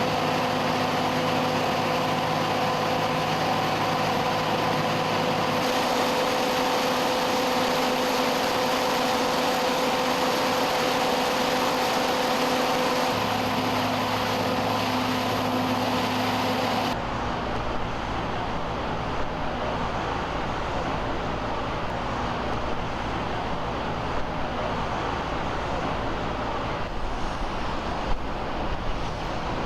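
Pumps running steadily with a constant machine hum made of several steady tones. About halfway through it switches abruptly to a rougher, noisier rumble.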